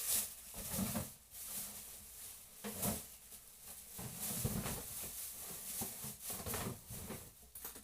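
Irregular rustling and handling noises, with louder scuffs near the first second, about three seconds in, and around four and a half and six and a half seconds.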